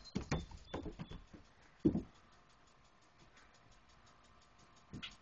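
Irregular footsteps thumping on a wooden deck: several in the first two seconds, the loudest just before the two-second mark, then a pause and one more near the end.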